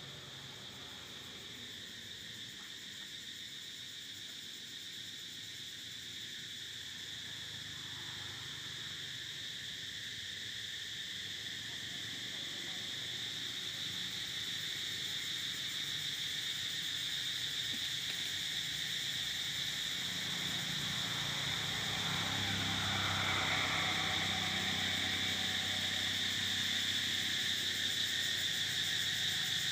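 Steady high-pitched insect drone that grows gradually louder, with a low rumble joining in about twenty seconds in.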